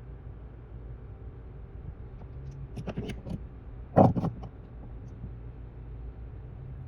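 A steady low hum with a few sharp clicks and knocks, the loudest about four seconds in.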